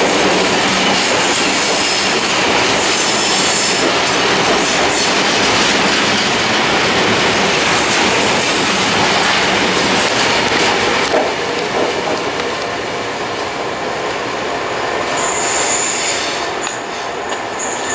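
Freight train of VTG box wagons rolling past at close range, wheels clattering on the rails. High-pitched wheel squeal comes in near the end as the last wagon goes by.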